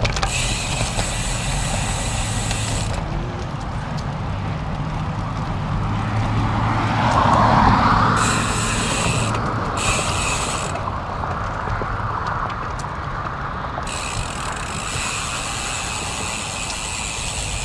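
Road bike's rear freewheel hub buzzing in stretches as the rider coasts, cutting out whenever he pedals, over steady wind and tyre noise. A vehicle passes on the road about seven seconds in.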